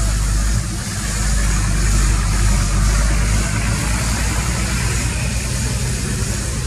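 An engine running steadily: a low rumble with a hiss above it that dips briefly about a second in.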